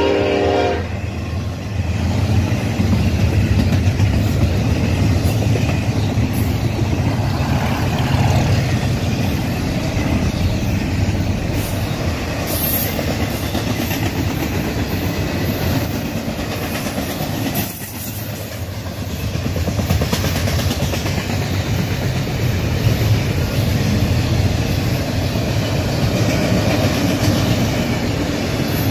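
Double-stack intermodal container train rolling past: a steady rumble of steel wheels on rail with clickety-clack over the rail joints. A train horn sounds at the start and cuts off about a second in.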